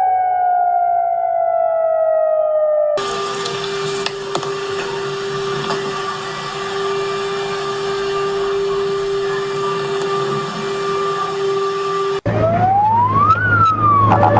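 Emergency siren and alarm recordings cut one after another: a siren's pitch sliding slowly downward, then from about three seconds in a steady alarm tone over background noise, and near the end a siren wail rising and then falling.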